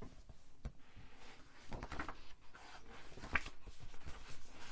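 Quiet room with faint rubbing and a few soft clicks.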